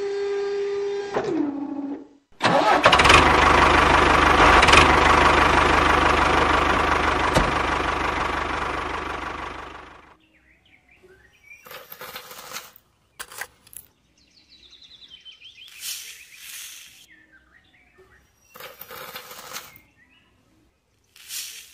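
A small electric motor whines and drops in pitch twice as the toy tipping trailer finishes dumping. Then comes a loud engine-like running sound with a low rumble, which fades out about ten seconds in. After it, scattered short scrapes of a tiny metal bucket scooping dry sand and cement powder.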